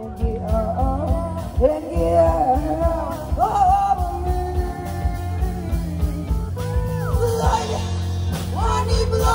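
Live band playing through outdoor PA speakers: a sung vocal melody over electric guitar, bass and a steady beat.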